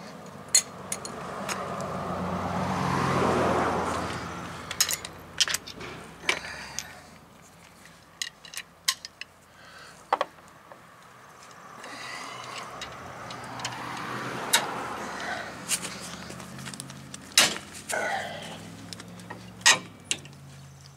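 Scattered metal clicks and clinks of a breaker bar and socket on the front brake caliper bracket bolts as they are broken loose. Two passing cars each swell and fade over a few seconds, one early on and one in the middle.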